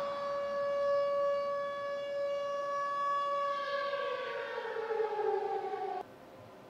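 Air-raid siren holding one steady wail, then winding down, its pitch falling over the last few seconds before it cuts off abruptly about a second before the end.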